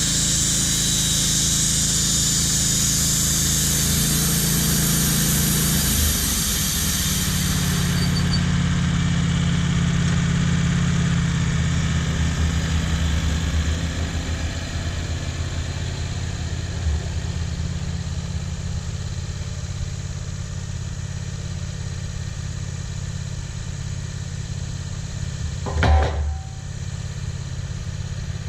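Engine running steadily, with a high-pitched hiss over it that cuts off about eight seconds in. A single knock comes near the end.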